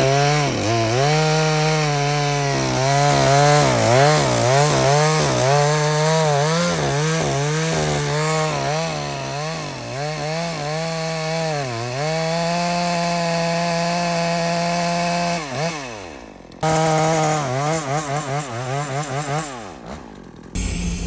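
Husqvarna 242 XP two-stroke chainsaw cutting wood at high revs, its pitch dipping and recovering again and again as the chain bogs under load in the cut, then holding steady at full throttle for a few seconds. The engine winds down about three quarters of the way through, revs back up with more dips, and winds down again near the end.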